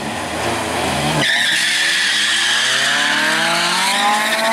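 Drag-racing car engine at full throttle, its pitch climbing steadily, with a high, steady tire screech setting in about a second in.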